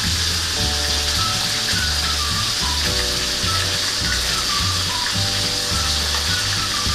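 Chicken sizzling in a hot pan, a steady hiss, over background music with a steady, repeating bass line.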